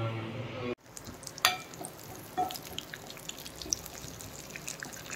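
Background music that cuts off under a second in, then food frying in a pan: a soft sizzle with scattered crackles and a few sharper clicks.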